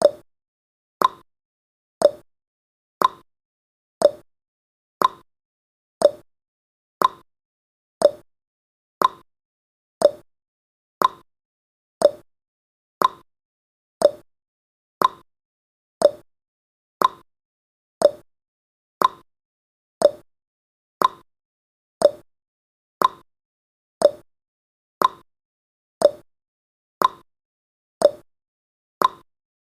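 Clock-like ticking sound effect of a countdown timer: one short, sharp tick every second, evenly paced.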